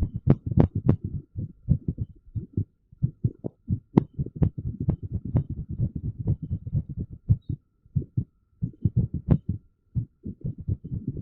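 Irregular heartbeat recording: rapid, uneven low thumps, with a few sharper clicks standing out among them.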